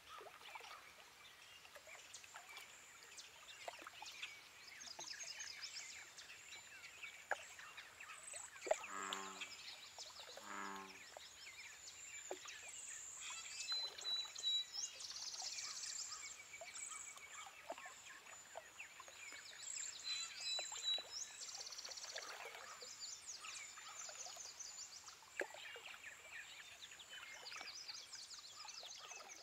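Faint outdoor animal ambience: many small chirps and calls throughout, with two short low croaking calls about nine and ten and a half seconds in.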